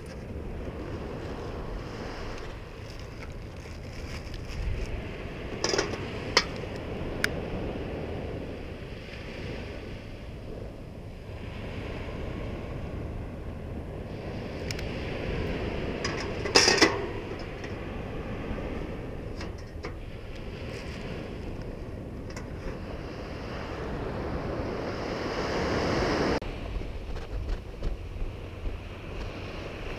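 Steady wash of ocean surf with wind on the microphone, swelling louder about 25 seconds in. A few sharp clicks and knocks, the loudest about 17 seconds in, from handling a small portable charcoal grill's grate and lid.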